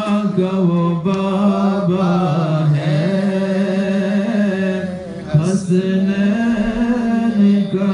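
A man's solo voice singing an Urdu naat into a microphone, unaccompanied, in long held notes with ornaments; there is a short break about five seconds in.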